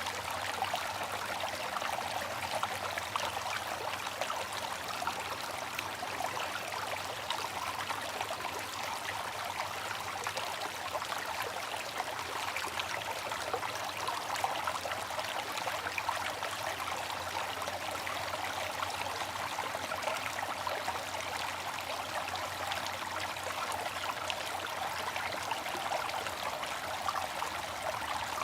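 Bamboo water fountain: water trickling steadily from the spout into its basin, an unbroken splashing with no knocks or pauses.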